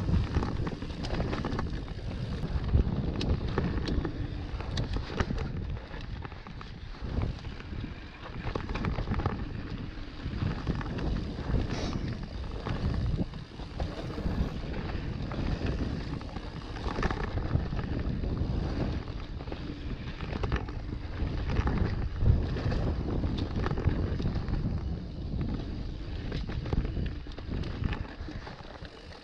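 Wind buffeting a mountain bike rider's camera microphone over the noise of knobbly tyres rolling on a dirt trail. The bike clatters and knocks over bumps and roots.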